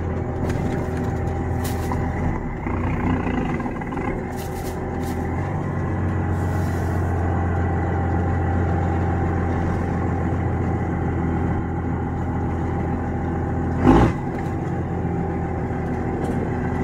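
First-generation Cummins 5.9 L inline-six diesel in a Dodge pickup, running steadily as the truck drives slowly, heard from inside the cab; the engine note dips a few seconds in and picks up again, and a single sharp thump sounds near the end.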